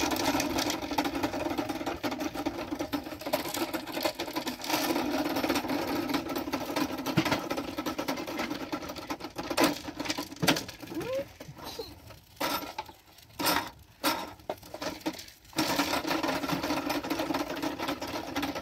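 A small motor's steady buzzing rattle. It cuts out for about three seconds past the middle, when a few clicks and knocks are heard, then starts up again.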